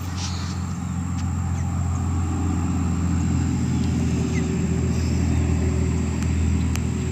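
An engine running with a steady low hum, growing louder over the first two seconds or so, then holding.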